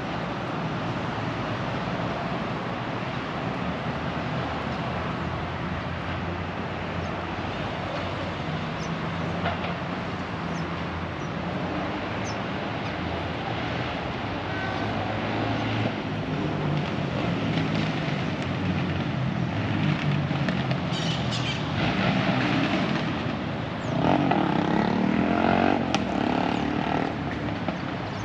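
City street traffic: a steady wash of passing cars' engine and tyre noise, getting louder in the second half with the loudest vehicle passing near the end.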